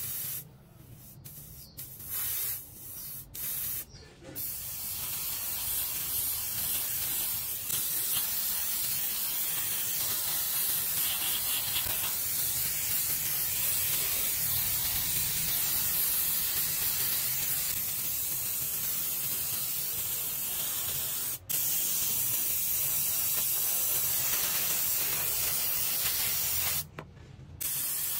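Airbrush hissing as it sprays white paint onto metal phone housing parts: a few short bursts at first, then a long steady hiss that breaks off briefly about three-quarters of the way through and pauses again near the end.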